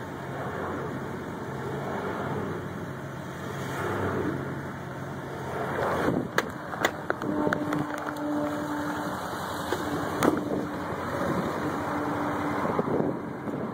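Truck driving on a street, heard from inside the cab: steady engine and tyre noise. A few sharp clicks come about six to seven seconds in and another about ten seconds in, and a steady hum joins from about seven seconds in.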